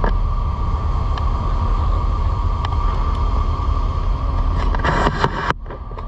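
Steady outdoor rumble of wind on the microphone over a constant machinery hum with a thin high whine, heard from a ship's deck in a canal lock. The sound turns harsher for a moment about five seconds in, then cuts off abruptly.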